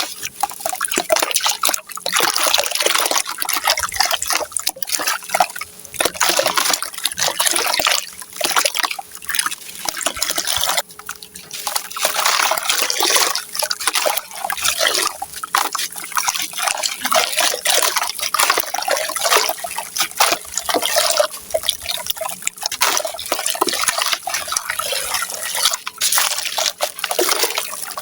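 Gritty sand-cement chunks soaked in water, crackling and crumbling apart in a dense run of small cracks, with wet dripping and trickling.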